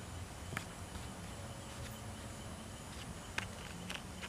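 Scattered soft taps and scratches of small paws and claws on a woven mat and cardboard as a baby African genet and kittens wrestle: one about half a second in and a few more near the end, over a steady low background hum.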